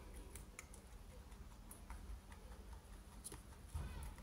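A young rabbit chewing hay: faint, irregular crunchy clicks, with a louder low bump near the end.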